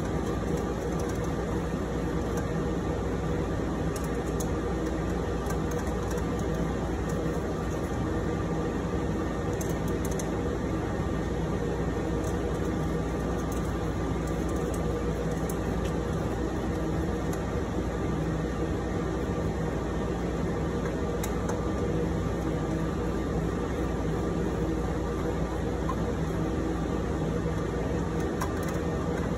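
Steady hum and whir of equipment cooling fans and air handling in a telephone switching room, with a few faint light ticks from hand work on the metal fan tray.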